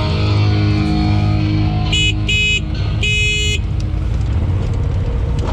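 Polaris RZR XP Pro side-by-side running with a steady low rumble, while a stretch of rock music fades out and three short high beeps sound about two to three and a half seconds in.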